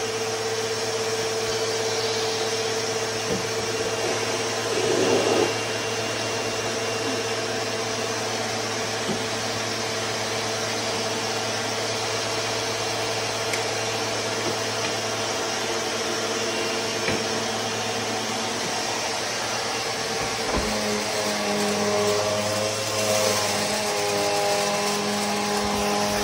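Vacuum cleaner with its hose attached, running steadily. It is briefly louder about five seconds in, and from about twenty seconds in a second, higher whirring note joins in and wavers.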